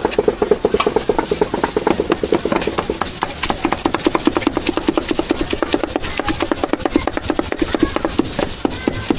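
Meat being hand-chopped with a cleaver on a wooden chopping board: rapid, even strokes, several a second, in a steady rhythm.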